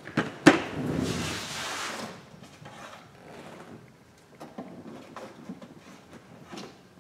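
Handling noise from an iPhone X being set down on a workbench mat: a sharp knock about half a second in, then a second or so of rubbing and sliding, then a few soft taps.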